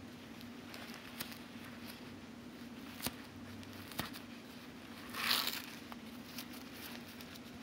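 Paper towel wrapping rustling and crinkling as it is pulled back by hand, with a few light ticks and one louder crinkle about five seconds in.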